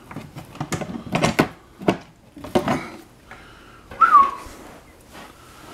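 Handling noise as the hatch cover of an RC speedboat is worked loose and lifted off: a run of short knocks and clicks, then a short whistle-like squeak falling in pitch about four seconds in.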